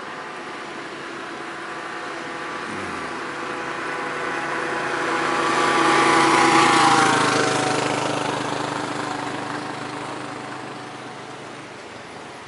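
A motor vehicle driving past: its engine grows louder, peaks about six to seven seconds in, then fades as its note drops in pitch.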